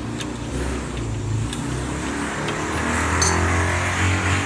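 A motor vehicle's engine running steadily and slowly getting louder, with a few faint metallic clicks.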